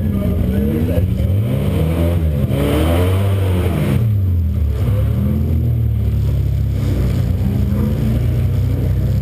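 Euro Rod race car's engine running at low revs, heard from inside the car, blipped up and down a couple of times about two seconds in, then settling back to a steady low-speed run.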